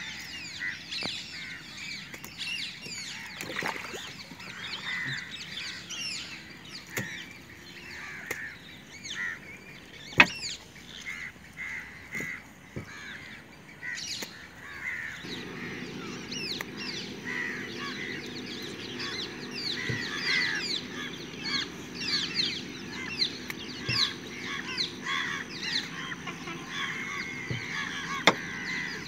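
Many birds calling together in dense, chattering, squawking calls. Two sharp knocks stand out, one about a third of the way in and one near the end, and a steady low hum comes in about halfway through.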